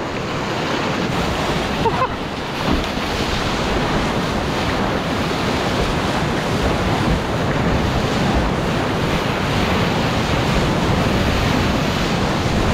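Big-volume river whitewater rushing and splashing around a kayak close to the microphone, with wind buffeting the mic. A steady rush that grows a little louder toward the end.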